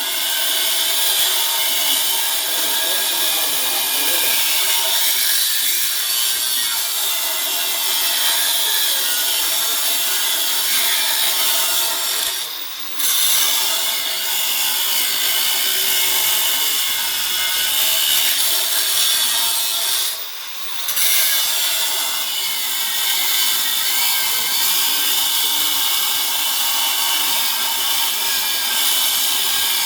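Power grinder cutting into the thick steel wall of a safe, a steady high grinding whine that dips twice briefly when the tool eases off, a little before halfway and about two-thirds of the way through.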